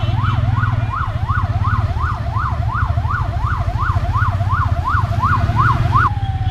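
Siren in a rapid yelp, sweeping up and down about three times a second over a steady low rumble. It cuts off about six seconds in, and a single slowly falling tone follows.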